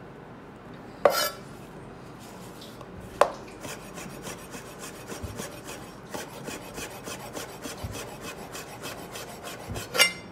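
Chef's knife rapidly slicing a folded sheet of dough into thin strips on a plastic cutting board: a fast, even run of short cutting strokes. Two sharp knocks come before the run, and another comes near the end.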